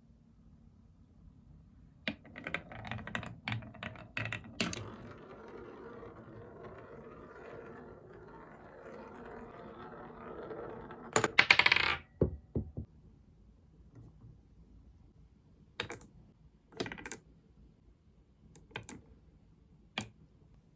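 Glass marbles running down a wooden marble run: a flurry of clicks as they set off, then a steady rolling rumble along the wooden track, a loud clatter just past the middle as they drop and knock together, and a few single clicks towards the end.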